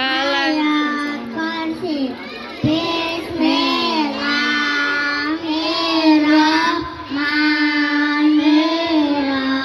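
Young girls singing a song, one of them into a microphone, in phrases of long held notes with short breaks between them.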